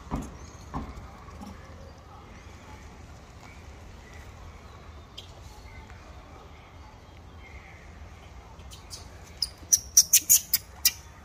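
Steady low background hum, then a quick run of about seven sharp, high chirps near the end.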